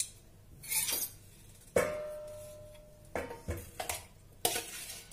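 Stainless steel bowl knocking and scraping against a steel strainer as thick curd is tipped out of it into a muslin cloth, with one sharp clang about two seconds in that rings on and fades. Several softer knocks and rustles follow as the upturned bowl is pressed and handled.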